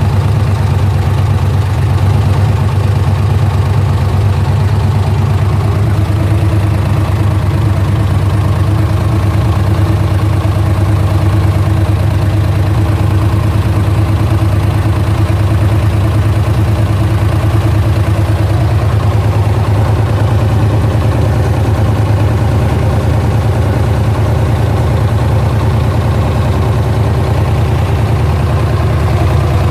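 GM LS1 5.7-litre V8 idling steadily with a ticking noise from the engine.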